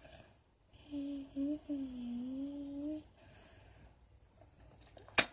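A girl humming a short tune: two brief notes, then a longer one that dips and rises again. Just before the end comes a single sharp click.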